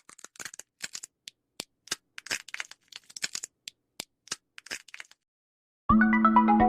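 Irregular small sharp cracks and crinkles, seed husks being cracked and picked over on a feeder shelf. About six seconds in, music with bright mallet-like notes starts.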